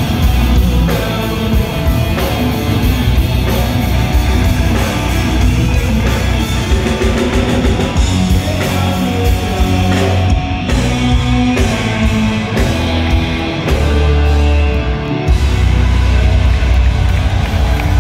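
Live rock band playing loud blues-rock: two electric guitars through Marshall amplifiers, bass guitar and drums, heard from the audience.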